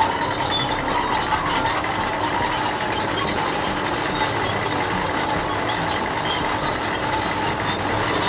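A heavy vehicle running steadily, with many short, high metallic squeaks scattered over the running noise.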